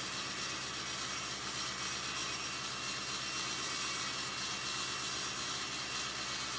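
Table saw running steadily with a high whine while walnut boards are ripped along the fence.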